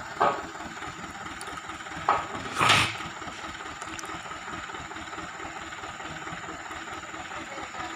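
Diesel engine of a loaded light dump truck idling steadily, with a few brief louder noises about two to three seconds in.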